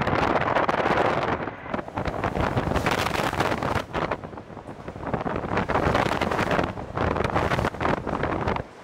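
Strong gusty storm wind buffeting the microphone, coming in uneven surges with short lulls about two seconds in, around four to five seconds in, and just before the end.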